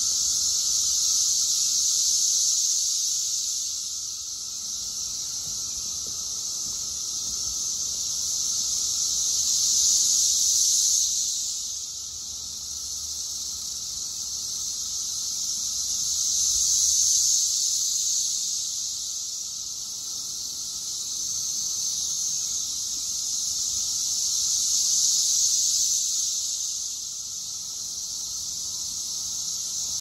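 Brood X periodical cicadas in a dense chorus: a high, continuous buzz that swells and fades in slow waves about every seven or eight seconds.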